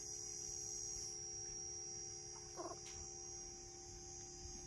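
A short animal call about two and a half seconds in, over a faint steady hum.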